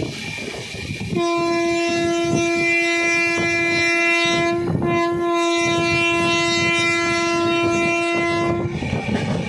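Train horn sounding two long blasts on one steady note, with a short break between them, over the clatter and rumble of the moving train's wheels on the rails.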